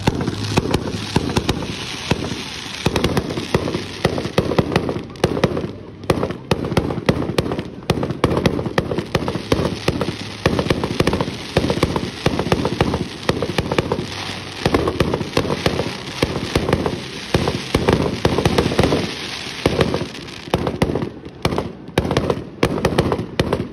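Fireworks barrage: a dense, rapid run of bangs and crackles, many reports a second, broken by a few brief lulls.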